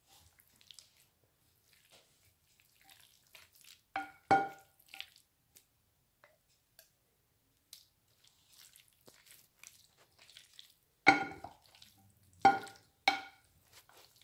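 Wooden spoon knocking against the side of a glass mixing bowl, each knock ringing briefly, in a cluster about four seconds in and three more near the end, between faint squelching of mayonnaise-coated macaroni being stirred.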